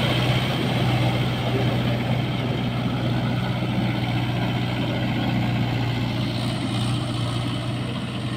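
Mahindra 585 Yuvo Tech+ tractor's diesel engine running steadily under load as it drags a rotavator through waterlogged paddy mud. It is a steady low drone that grows slightly fainter as the tractor pulls away.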